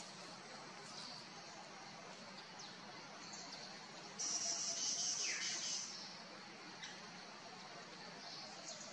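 Forest ambience of insects: a steady faint hum, with a louder, high-pitched insect buzz that starts about four seconds in and stops under two seconds later, and a few faint chirps.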